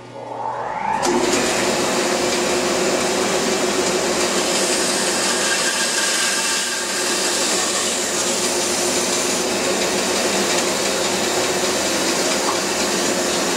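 Bandsaw switched on, its motor winding up over about a second and then running steadily with a hum while a board is fed along the fence and resawn into a thin slice.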